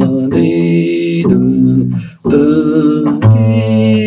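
Double bass plucked in a slow walking line, about one note a second, each note held with a short break between them: an arpeggio pattern.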